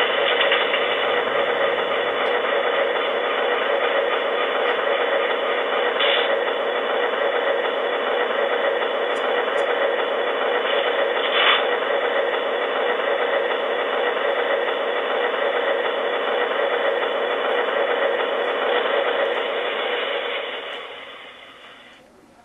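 Sound decoder in an HO-scale BLI Paragon Alco RSD-15 model locomotive playing its diesel engine through the small onboard speaker: the engine runs steadily at idle, with two brief hisses, then winds down and fades out near the end as the shutdown sequence finishes.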